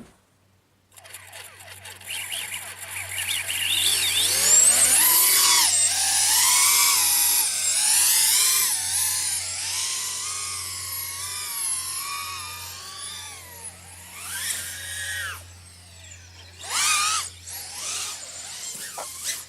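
Blade Torrent 110 FPV quadcopter's brushless motors whining in flight, starting about a second in, the pitch swooping up and down with the throttle. It fades after about fifteen seconds, with two shorter throttle bursts near the end.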